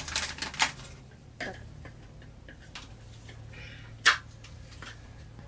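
Scattered clicks and light knocks of plastic parts of a Jabsco electric marine toilet being handled and fitted, the sharpest about four seconds in, over a low steady hum.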